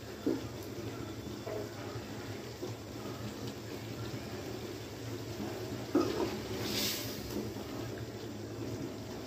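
Chicken frying in thick masala gravy in a steel pot, sizzling and bubbling steadily while a metal spoon stirs it. The spoon knocks against the pot a few times, most sharply about six seconds in.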